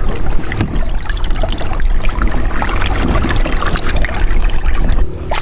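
Water splashing and trickling around a fishing kayak, full of small drips and splashes, over a steady low rumble.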